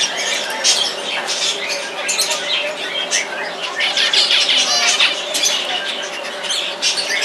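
Small aviary birds calling continuously, with many short, overlapping chirps and squawks.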